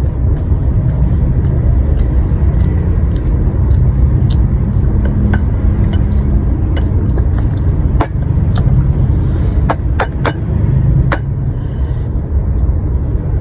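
A boiled balut eggshell being tapped and cracked: a cluster of sharp clicks over several seconds in the second half, over a steady low rumble that runs throughout.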